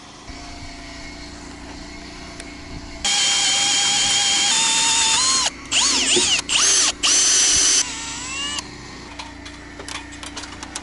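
Milwaukee cordless drill boring a peg hole with a long auger bit through a timber-frame beam and tenon. It runs slowly at first, then about three seconds in runs at full speed with a loud whine; its pitch sags and it is stopped and restarted a few times before it stops about eight seconds in, followed by a few light knocks.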